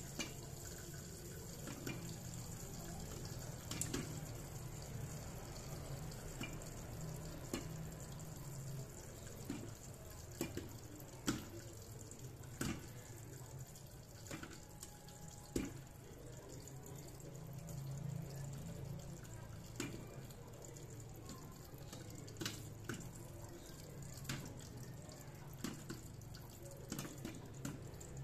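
Popcorn kernels popping in an electric pot under a glass lid: sparse, irregular pops a second or so apart, the tail end of the batch with the pot already full of popped corn. A steady low hum runs underneath.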